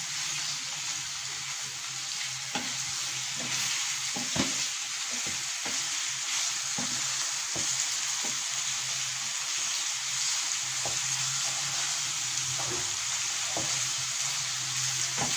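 Spice-marinated boneless chicken pieces sizzling steadily in hot oil in a nonstick frying pan, being stirred and turned with a wooden spatula that scrapes and knocks against the pan now and then.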